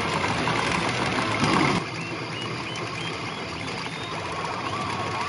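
P Fever Karakuri Circus pachinko machine playing its electronic effects over a steady rattling clatter. A louder effect cuts off suddenly about two seconds in, leaving the clatter with short high beeps.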